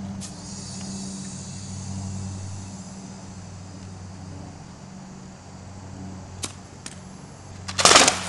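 Water bottle rocket pressurised to 70 PSI launching from a PVC launch tube: a sudden loud rush of air and water spray near the end.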